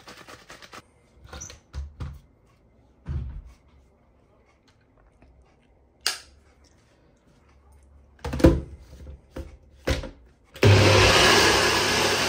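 A few knocks and clicks as the blender's lid and jug are fitted, then about ten and a half seconds in a blender switches on and runs steadily at a loud, even pitch, blending a thick oat, peanut-butter and banana protein shake.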